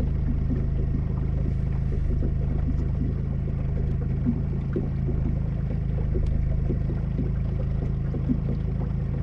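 Boat motor running steadily at slow trolling speed, a constant low hum. Small irregular knocks sound over it, with two slightly louder ones about four and eight seconds in.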